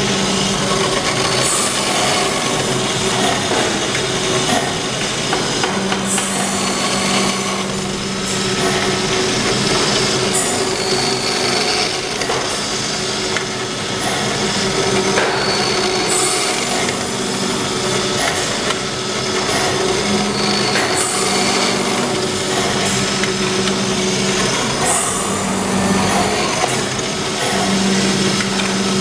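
Benchtop drill press running steadily as it machines small brass hinge bodies, with a low machine hum and short, higher-pitched bursts of cutting noise every few seconds.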